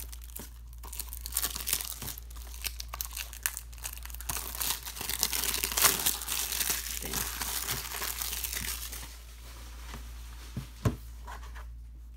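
Clear plastic shrink wrap being peeled off a Blu-ray case and crumpled in the hand: a dense crackling and tearing, heaviest in the middle, dying down after about nine seconds. A single sharp click comes near the end.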